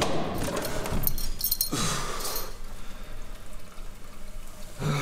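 Light metallic clinks and rustling from a man settling into a toilet cubicle, with a short louder sound near the end, echoing in a small tiled room.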